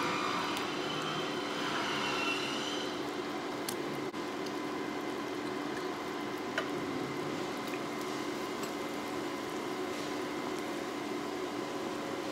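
A pot of canned peaches in buttery syrup simmering on the stove, giving a steady bubbling hiss, with a steady low hum under it and a few faint clicks.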